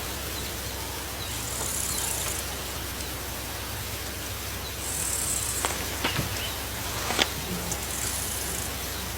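Outdoor ambience with insects calling in high, short buzzes that repeat about every three seconds, over a steady low background hum. A few sharp clicks come in the second half.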